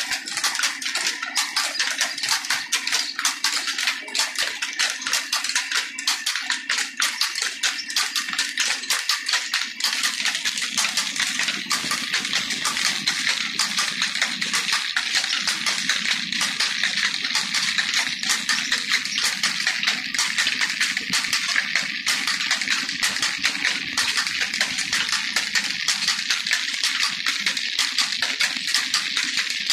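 Belt-driven flour mill (atta chakki) grinding grain, turned by flat belts and a line shaft from an old Ruston Hornsby stationary diesel engine: a fast, dense, steady clatter. The low part of the sound grows stronger about ten seconds in.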